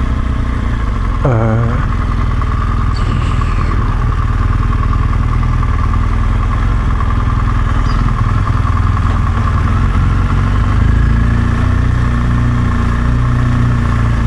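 BMW R1200GS flat-twin engine running steadily as the motorcycle is ridden at low speed through narrow streets. A brief falling whine comes about a second in.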